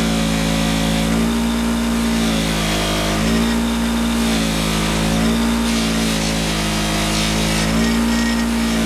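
Central Machinery bench grinder running a buffing wheel, a steady motor hum that wavers in pitch every two seconds or so as a stainless steel bolt is held against the wheel and polished with red rouge.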